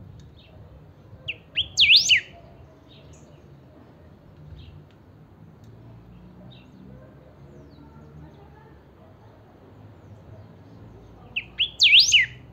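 A caged greyish saltator (picahueso) sings a short, loud phrase of quick rising and falling whistles about a second in, and the same phrase again near the end. Faint chirps of other birds come in between.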